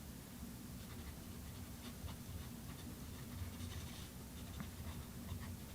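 Monteverde MP1 fountain pen nib scratching softly across recycled paper as it writes, with small ticks at the strokes.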